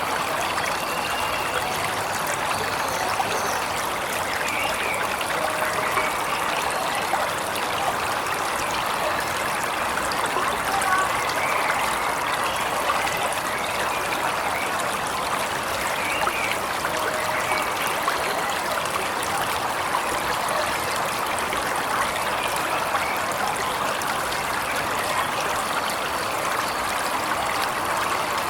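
Waterfall running steadily, a continuous rush of falling water, with faint bird calls now and then.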